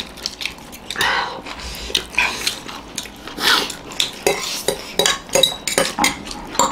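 Forks clinking and scraping against plates as several people eat noodles, with irregular sharp clicks and a few longer slurps of noodles.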